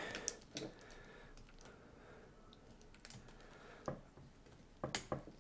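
Faint, scattered light clicks and plastic handling noises as the extruder stepper motor's cable connector is worked into its socket, with a small cluster of clicks near the end.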